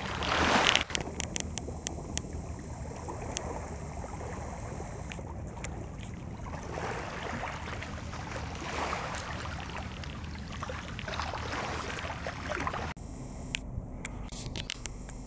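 Lake water lapping and wind on the microphone over a low steady rumble, swelling now and then, with a louder surge at the start. A few sharp handling clicks are heard, and the sound changes abruptly near the end.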